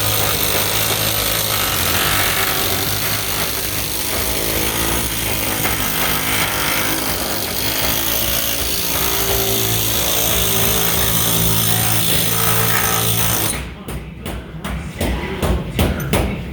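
Pneumatic air hammer working sheet-metal ductwork, running continuously with a fast rattle, then stopping abruptly about three seconds before the end and giving way to a string of separate sharp knocks.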